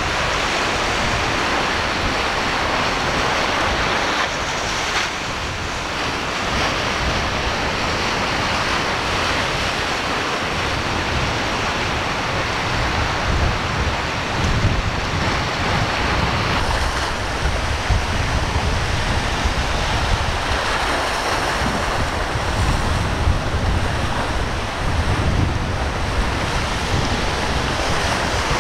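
Rough sea waves breaking and rushing, with wind buffeting the microphone.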